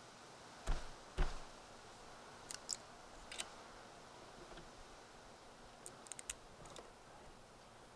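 Hand tools working on a small aluminum-cased electronic component: two knocks about a second in, then a series of sharp light clicks and snips as the casing is pried and cut apart.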